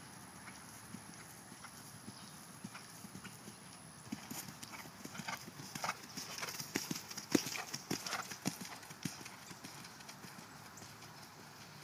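A horse's hoofbeats on grass turf at a canter: irregular thuds that grow louder as it passes close by, loudest a little past the middle, then fade as it moves away.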